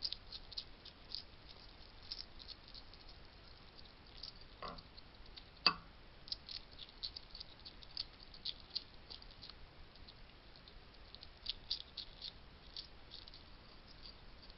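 Hedgehogs chewing and crunching dry food: rapid, irregular small crackling clicks, with a sharper knock a little over five and a half seconds in.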